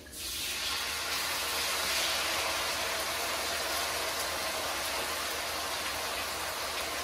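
Red wine hitting a hot cast iron skillet of vegetables and tomato paste, sizzling in a steady loud hiss: the pan being deglazed over high heat. The hiss starts suddenly and swells over the first second, then holds.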